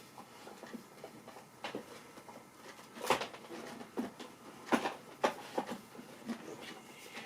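Scattered sharp plastic clicks and knocks, the loudest about three seconds in and again near five seconds, as the dirt cup and cyclone of a Shark bagless stick vacuum are twisted and pulled by hand; the part is stuck and won't come apart.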